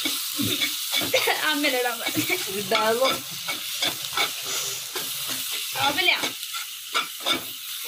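Steel spoon stirring and scraping through a tomato masala frying in oil in a pan, with repeated short scrapes over a steady sizzle.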